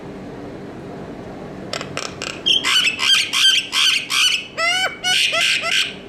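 Common myna calling loudly: a rapid run of harsh, chattering notes, about four a second, starting just under two seconds in and stopping just before the end, with a few notes falling in pitch near the end.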